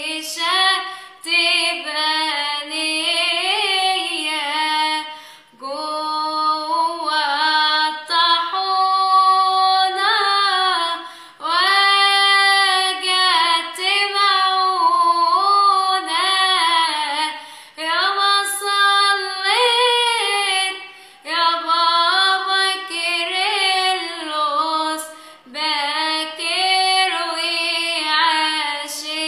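A woman singing an Arabic Coptic hymn solo, in long sung phrases with short breaks for breath between them.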